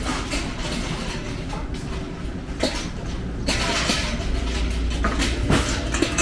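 City street ambience: a steady low rumble of traffic under a noisy hiss that grows louder about halfway through, with a few short knocks.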